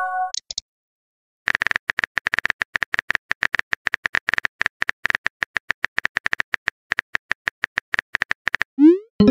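Simulated phone-keyboard typing from a texting-story app: a long, rapid run of short, even key clicks. At the very start a message chime rings out, and near the end a short rising swoosh plays as the message is sent.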